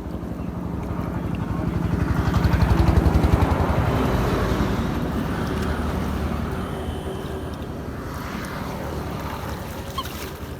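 A small engine running with a rapid, even pulse, passing by: it grows louder to a peak about three seconds in, then slowly fades.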